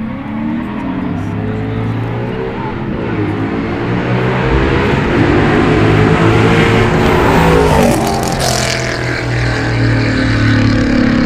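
Cars accelerating hard down the street in a street race, the engines rising in pitch and loudness as they approach. They are loudest about eight seconds in as they pass close by, then pull away.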